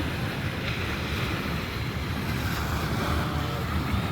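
Wind buffeting the microphone, a steady low rumble over the wash of surf on the beach.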